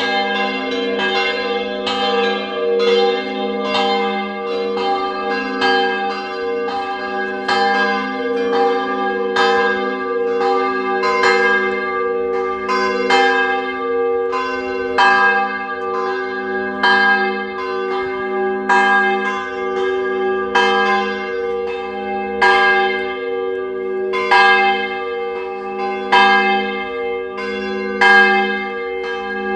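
Church bells ringing in a continuous, unbroken run of strikes, each bell's tone ringing on and overlapping the next.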